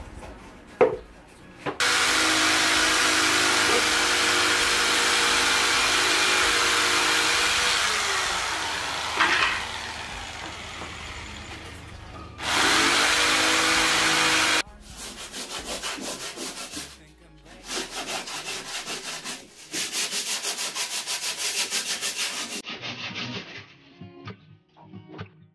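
Handheld electric power saw cutting a wooden board: the motor runs for about six seconds and then winds down. It starts up and cuts again briefly, and is followed by a run of quick rhythmic strokes. Guitar music comes in near the end.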